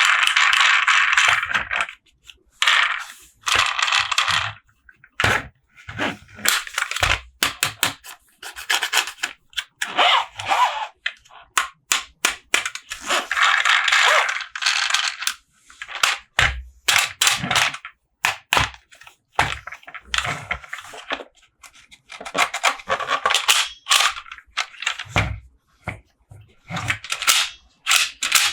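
Plastic toy packaging and toy trucks being handled: irregular bursts of rubbing and scraping, broken by sharp clicks and short pauses.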